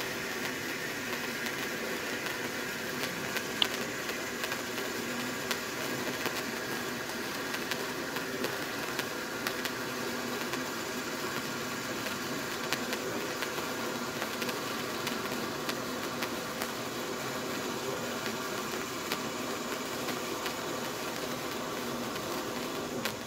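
Hand-held white bengal flare with titanium sparks burning: a steady hiss with faint scattered crackles, and one sharper click about three and a half seconds in.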